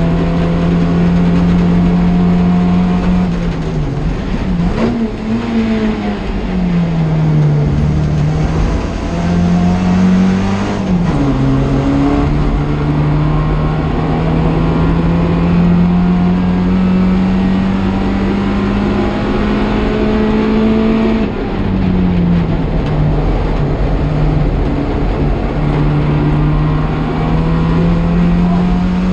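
Classic Mini race car's A-series four-cylinder engine at racing revs, heard from inside the cockpit. Its pitch climbs slowly on the straights and drops sharply several times as the driver lifts and changes down for corners, with the longest climb through the middle.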